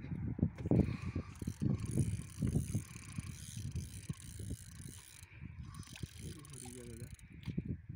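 Spinning fishing reel being cranked, its gears making a quick run of mechanical clicking and whirring.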